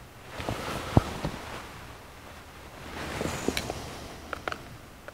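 Screwdriver tightening the small choke valve screws in the air horn of a Rochester 4-jet carburetor: soft scraping and rubbing with a few light clicks, and a sharper knock about a second in.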